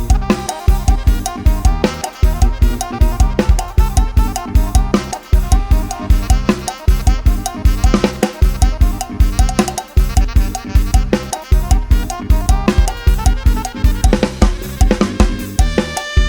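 Isan-style Thai procession music (lai hae) played on a live-sounding drum kit: a fast, busy beat of heavy kick drum and snare driving steadily under a melody line.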